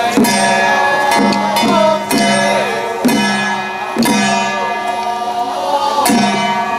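Traditional Taiwanese temple ritual music: irregular strikes on drums and other percussion, each leaving a ringing tone that falls in pitch, under a high wavering melody.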